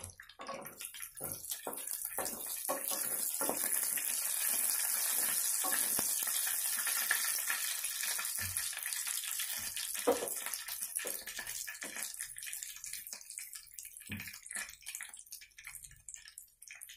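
Cumin seeds, bay leaf, black peppercorns and cloves sizzling in hot melted butter in a pan. A crackling hiss swells over the first few seconds and then slowly dies down as the cumin roasts, with occasional pops.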